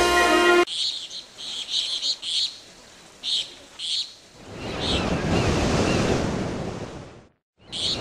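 A music track cuts off, then birds chirp in short, separate calls. About halfway, a rushing swell of noise builds and fades away, and the sound drops out briefly near the end.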